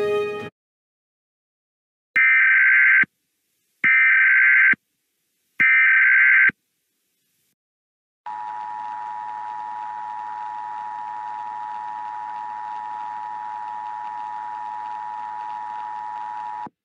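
Emergency Alert System tones. Music cuts off, then three EAS SAME header data bursts sound, each a harsh digital screech just under a second long with gaps between them. After a short pause comes the EAS attention signal, a steady two-tone drone at 853 and 960 Hz with a faint hiss beneath it, lasting about eight seconds.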